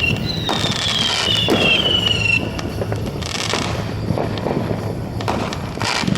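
Fireworks going off at close range: several whistles, each falling slowly in pitch, for the first two seconds or so, over sharp bangs and crackle that keep going.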